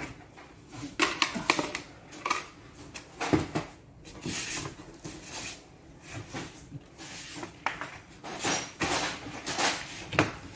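Scattered clicks, knocks and rustles of a large cardboard shipping box being handled and unpacked, its plastic strapping worked at and the cardboard pushed and shifted.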